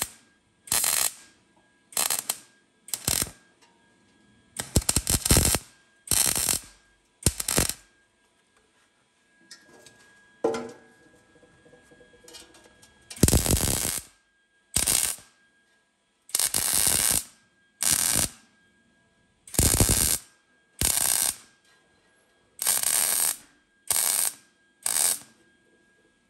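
Wire-feed welder laying tack welds on thin sheet-metal tin: a string of about fifteen short arc bursts, each under a second, with a pause of several seconds near the middle.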